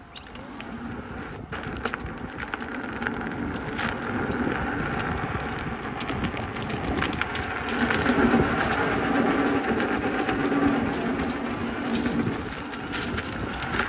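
Inmotion V12 electric unicycle riding along a path: tyre rumble on the surface and a steady hum from the hub motor, with scattered crackles of grit under the tyre. It gets louder from about eight seconds in.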